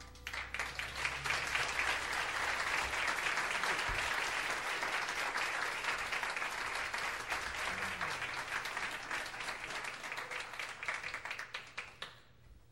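A crowd applauding: many hands clapping, swelling quickly at the start, holding steady, then thinning to scattered claps and dying away near the end.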